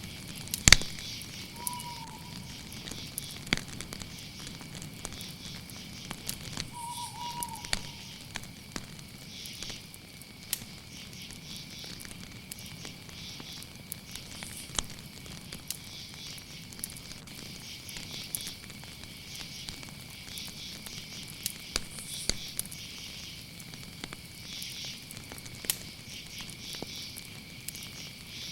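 Campfire crackling, with scattered sharp pops, the loudest about a second in, over a steady chorus of crickets trilling. Two short chirps come in the first eight seconds.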